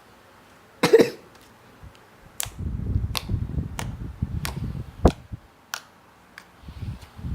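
Slime being squished and worked by hand: a sharp pop about a second in, then spells of low, wet crackling squelches with sharp clicks and pops.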